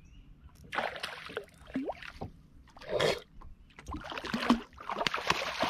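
Water splashing in several bursts as a large hooked catfish thrashes at the surface.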